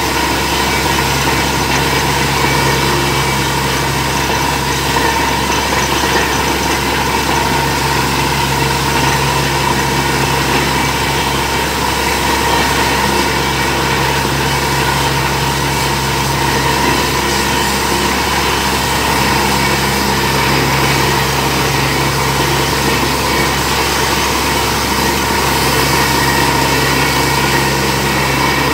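Borewell drilling rig's engine and air compressor running steadily while compressed air blows groundwater up out of the bore in a continuous gushing spray. The heavy flow is the sign that the bore has struck water.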